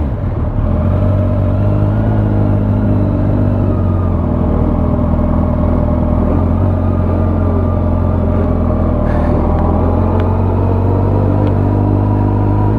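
Motorcycle engine running steadily at low revs as the bike is ridden off at low speed.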